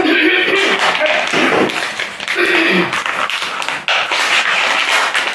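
Plastic packet of sliced cooked ham being pulled open and handled: loud crinkling of the plastic film with many small sharp clicks.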